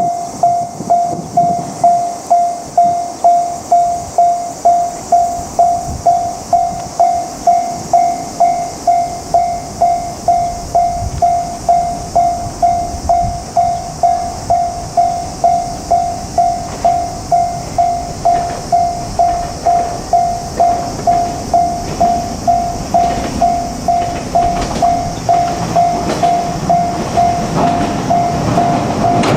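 Japanese railway level-crossing warning bell ringing, single electronic tones repeating evenly at just under two strokes a second. A JR Kyushu 817-series electric train is approaching, its low rumble growing louder over the last several seconds.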